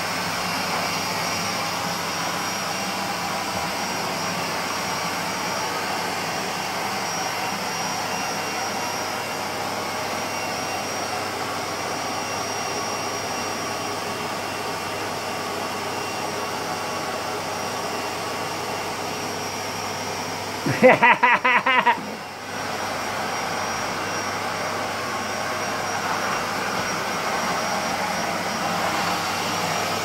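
Vacuum cleaner running steadily with its floor head on a rug, a thin high whine over the rush of air. About two-thirds of the way through, a loud stuttering burst lasts about a second, followed by a brief dip in the sound.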